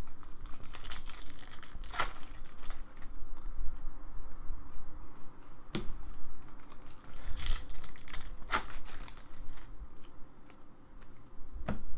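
Trading-card pack wrappers being torn open and crinkled by hand, with several sharp rips among the crackle of wrapper and cards being handled.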